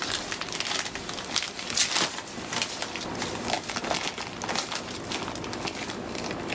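Irregular rustling and crackling, made of many short crinkles and clicks with no steady rhythm.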